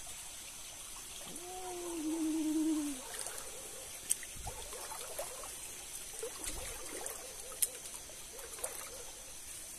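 Shallow stream water trickling, with small splashes as feet wade through it. About a second in, a held tone lasts just under two seconds.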